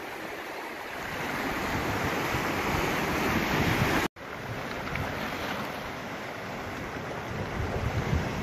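Ocean surf washing in over shoreline rocks, a continuous rush, with wind rumbling on the microphone. The sound drops out for an instant about four seconds in, then the surf goes on.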